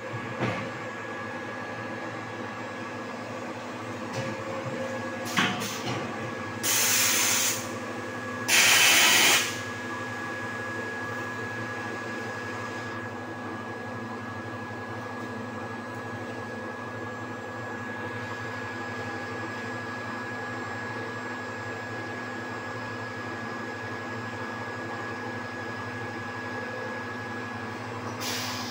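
Bottle blow moulding machine, air compressor and chiller running: a steady machine hum with a constant high whine. It is broken about seven and nine seconds in by two loud hisses of released compressed air, each about a second long, with a few clicks just before them and a short hiss near the end.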